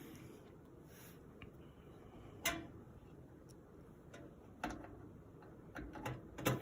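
Faint, scattered clicks of a Phillips screwdriver and small screws as motherboard screws are driven into the case standoffs by hand: single clicks about a third and two thirds of the way in, then several close together near the end.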